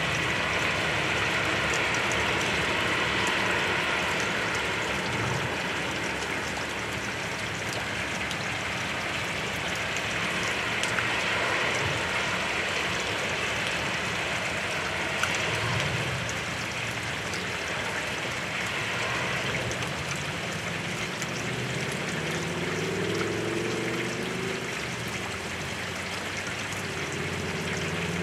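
Heavy rain pouring down steadily, an even hiss with scattered sharp ticks of single drops. A faint low hum comes in near the end.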